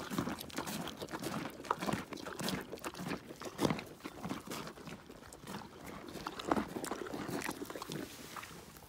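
Animals eating carrot pieces: dogs scrambling for dropped scraps in grass, with irregular crunching and clicking all through.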